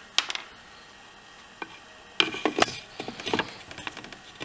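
Clicks and short scrapes of a long metal tool working inside a Poulan chainsaw's plastic fuel tank, pulling out old fuel line that has deteriorated and comes out in pieces. There is a single click just after the start, then a cluster of clicks and scrapes from about two seconds in.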